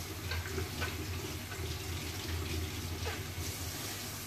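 Kitchen tap running into a stainless steel sink while an apple is washed under the stream.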